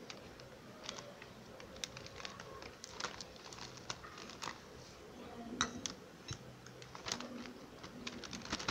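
Thin plastic bag crinkling and rustling, with scattered light taps and clicks, as flour is tipped from a bowl into it and the bag is handled.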